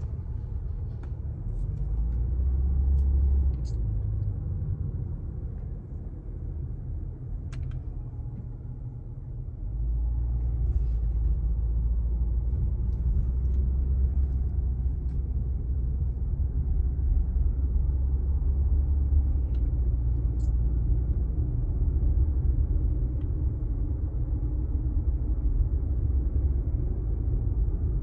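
Low road and engine rumble heard from inside a moving car's cabin, easing for a few seconds and growing louder again about ten seconds in, with a few faint clicks.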